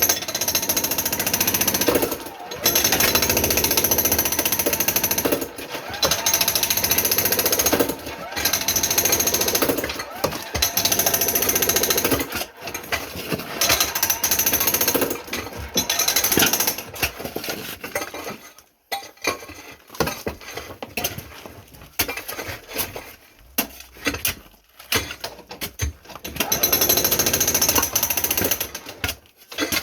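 Jackhammer breaking concrete, the cutting of a basement slab for an interior drainage trench. It runs in bursts of a few seconds with short pauses, and goes quieter and more broken for several seconds past the middle before running hard again near the end.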